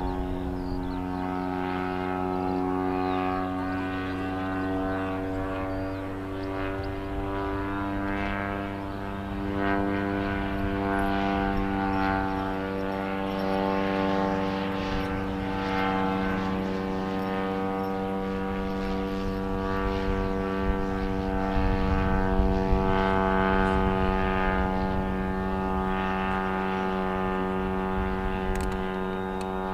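Engine of a propeller-driven RC tow plane running at a steady, constant pitch.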